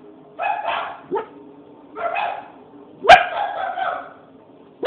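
A dog barking, a run of separate barks about a second apart, the loudest coming about three seconds in and again at the very end.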